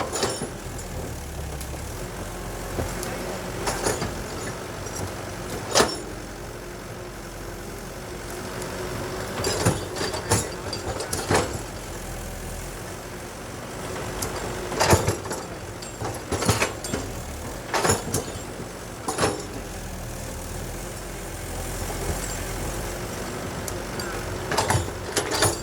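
Heavy diesel machinery running steadily: an excavator loading a dump truck. The hum is broken by about a dozen loud, irregular bangs and clanks as material drops into the steel truck bed.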